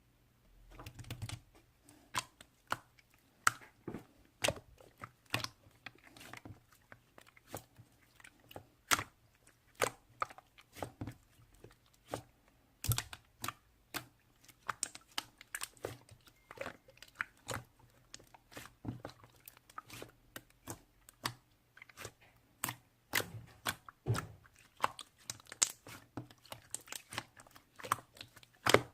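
Keys being typed on a computer keyboard: irregular sharp clacks, a few a second, with uneven pauses.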